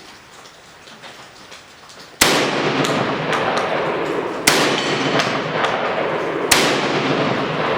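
Three shots from a Benelli M4 12-gauge semi-automatic shotgun firing slugs, about two seconds apart, each a sharp bang followed by a long, loud tail of noise.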